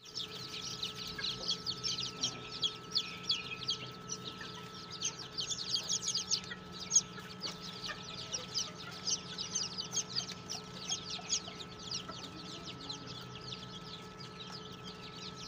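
A brood of young chicks peeping continuously, many short high peeps falling in pitch and overlapping, over a faint steady hum.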